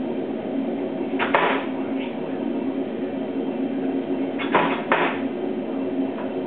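400 lb Chambersburg air hammer running with a steady machine hum, striking hot 4140 steel. There is one blow about a second in and two quick blows close together near the end.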